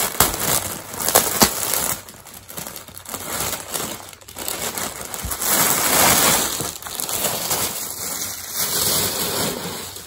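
Thin clear plastic bag crinkling and rustling as it is pulled open and crumpled by hand to get a sweatshirt out, with a few sharp crackles in the first second and a half and the loudest crinkling about six seconds in.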